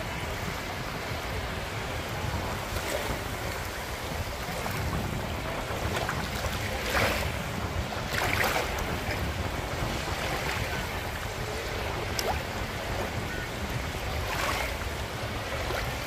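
Small Black Sea waves lapping and washing over a shore of shells and pebbles, with a handful of sharper splashes, the loudest about seven and eight seconds in. Wind rumbles on the microphone underneath.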